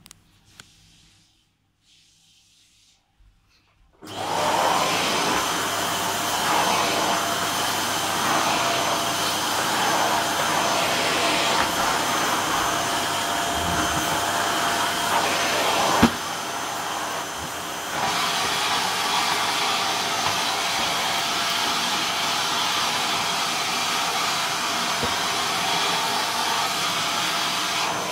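Canister vacuum cleaner switching on about four seconds in, then running steadily with a constant hum as the carpet is vacuumed. A little past halfway there is a knock, and the noise is slightly quieter for about two seconds before returning to its earlier level.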